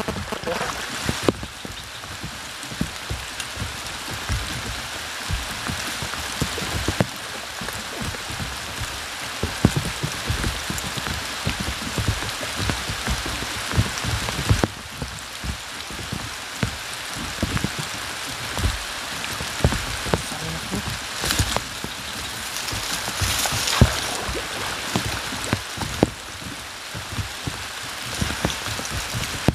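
Steady rain falling, an even hiss with many sharp drop taps scattered through it.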